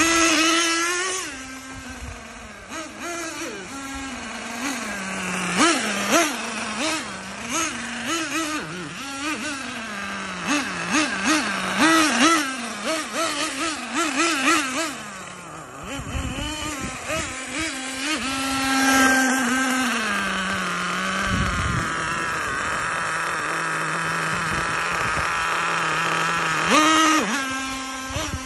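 Small two-stroke nitro glow engine of a Kyosho 1/10-scale on-road RC car running on a test drive after its seized engine was serviced. Its pitch rises and falls with repeated throttle blips, holds a steady note for a few seconds in the latter part, then revs up sharply near the end.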